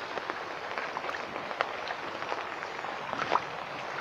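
Rain falling on puddles on a concrete path: a steady hiss dotted with the ticks of individual drops, with one louder splash a little past three seconds in.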